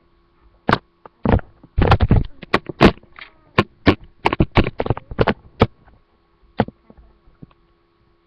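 A webcam being handled and moved about: an irregular run of bumps, knocks and rubbing against its microphone. A faint steady electrical hum runs underneath.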